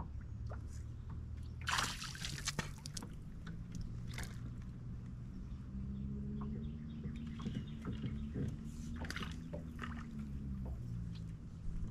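Water sloshing and splashing, with a few sharper splashes, the first and loudest a couple of seconds in, over a steady low hum.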